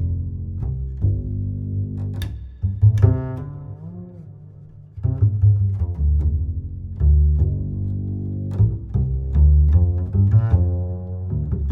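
Background music led by low plucked and bowed string notes with a steady beat.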